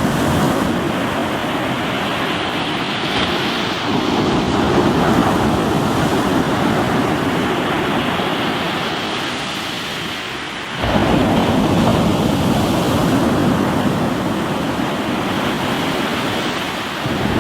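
Sea waves breaking on a rocky shore: a steady wash of surf, with a new wave surging in about four seconds in and crashing in suddenly about eleven seconds in.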